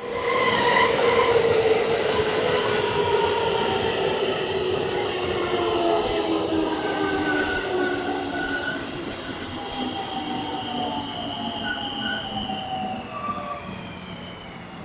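An electric train slowing down as it runs into the station. Several whining motor tones fall steadily in pitch, with brief squeals near the middle and later, and the sound grows gradually quieter.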